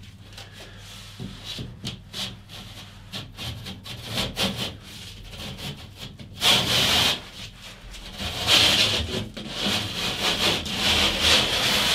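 Hand drywall edge plane scraping along the edge of a plasterboard panel to chamfer it. Light scratches and taps at first, then from about halfway a series of louder scraping strokes.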